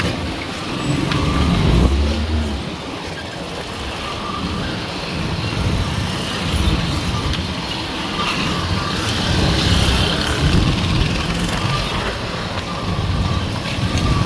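A vehicle riding along an unpaved dirt road: steady engine and road rumble, uneven with the bumps, with street traffic around it.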